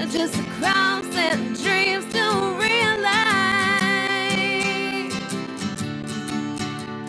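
Background music: a sung melody over plucked acoustic guitar.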